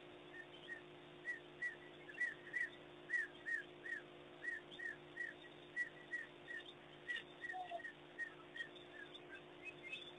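A run of short, high, whistle-like chirping calls, each rising then falling, repeated about two to three times a second, over a steady low hum.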